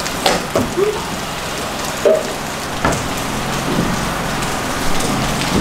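A steady hiss, like rain on a surface, with scattered clicks and knocks and a few brief squeaks.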